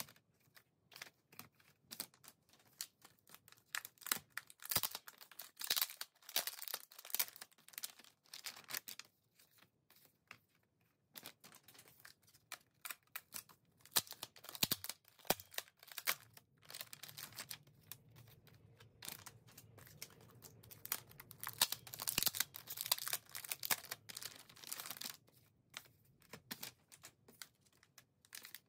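Crinkling and tearing of a sealed plastic album pouch being peeled open by hand, mixed with small clicks and clacks of a plastic CD jewel case. The rustling comes in irregular spurts, with a lull about a third of the way through.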